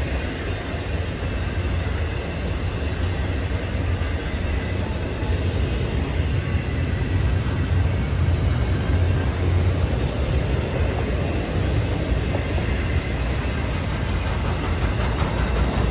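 Norfolk Southern freight train's cars rolling past: a steady low rumble of wheels on the rails that grows a little louder toward the end.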